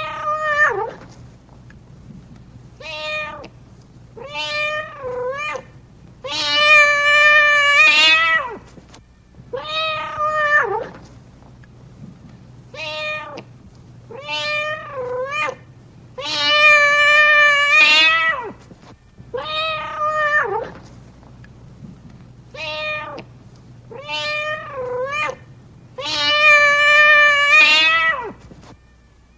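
Domestic cat meowing repeatedly: about a dozen meows, some short and some drawn out to nearly two seconds with a wavering pitch. The same run of meows repeats about every ten seconds.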